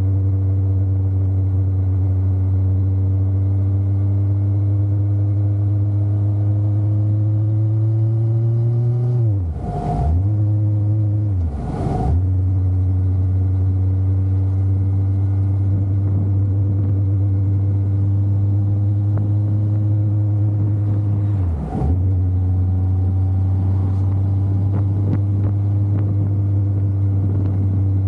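Motorcycle engine running at road speed, its note climbing slowly. Three times it dips briefly, about ten and twelve seconds in and again near the end, as the throttle is eased off; after the first two it settles at a lower pitch, as at a gear change.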